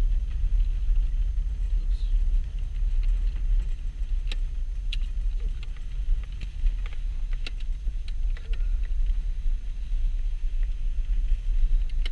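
Steady low rumble of a car's engine and tyres heard from inside the cabin while driving a snow-covered road, with scattered light clicks and ticks from about four seconds in.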